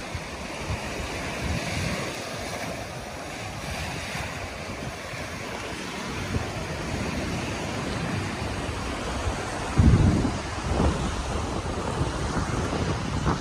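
Small waves washing onto a sandy beach, with wind buffeting the microphone in uneven low rumbles, strongest about ten seconds in.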